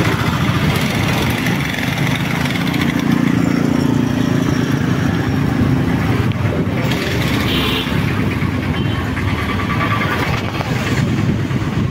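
A two-wheeler's engine running while riding along a street, with steady road and traffic noise; its hum is loudest a few seconds in.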